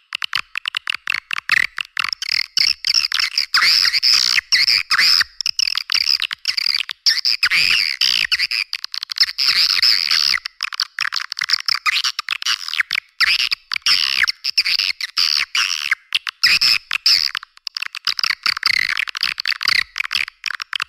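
Swiftlet lure call: a recording of swiftlets' rapid twittering chirps, the kind played through tweeters to call swiftlets into a bird house. The chirps come densely, with only brief gaps.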